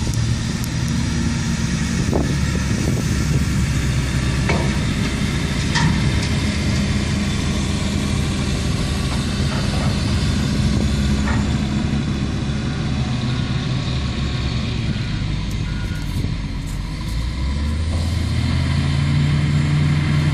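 Large diesel engine of a Hitachi ZW310 wheel loader running under load beside idling dump trucks, with a few knocks early on. Near the end the engine rises in pitch as the loader backs away from the truck.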